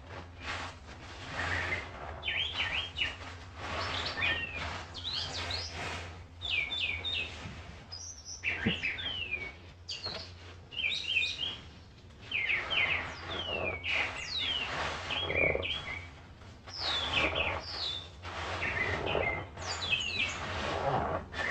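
Wild songbirds chirping loudly and continually, short rapid calls overlapping one another. Swells of hissing noise rise and fall underneath the birds.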